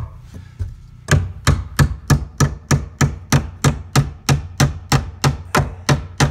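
Claw hammer driving the nails of a plastic electrical box into a wooden 2x4 stud: one blow, a couple of light taps, then from about a second in a steady run of strikes, about three a second.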